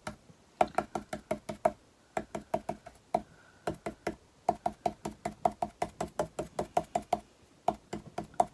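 Stencil brush pouncing paint through a stencil onto a wooden breadboard: rapid taps, about eight a second, in short runs with brief pauses between them.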